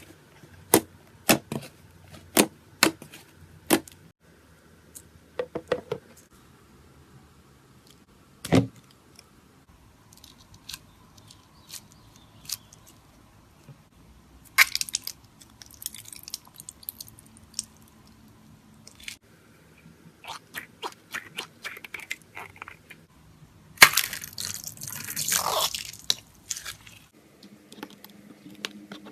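Slime being squeezed and poked by hand: a run of sharp wet clicks and pops, with clusters of crackling and a louder, longer crackling squish near the end.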